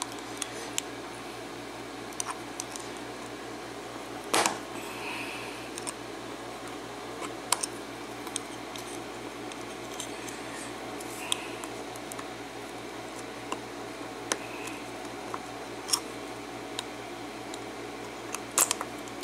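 Small metal tools clicking and scraping against a padlock while prying at its stubborn retaining clip. The sharp ticks come irregularly, loudest about four seconds in and again near the end, over a steady background hum.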